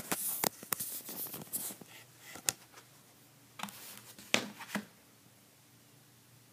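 Hands handling the phone that is recording: scattered clicks, knocks and rubs close to the microphone, stopping about five seconds in.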